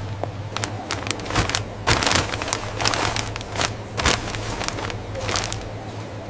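Irregular crackling and crinkling clicks over a steady low hum.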